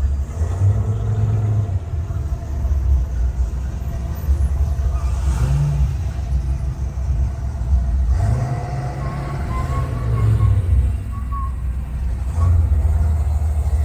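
Engines of classic muscle cars rumbling as they roll slowly past. The sound swells several times, with a brief rev about eight seconds in.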